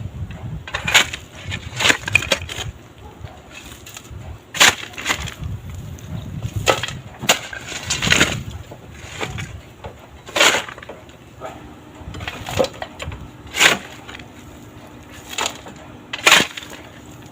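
Hand tools clinking and knocking on metal at an irregular pace while a wrench is tried on the alternator's mounting nut. A faint steady hum comes in about two-thirds of the way through.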